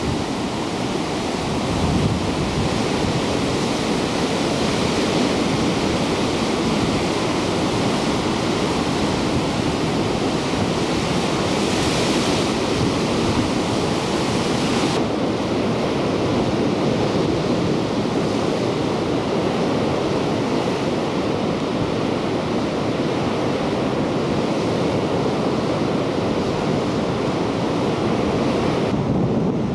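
Heavy surf breaking against black lava rocks: a steady rush of churning white water.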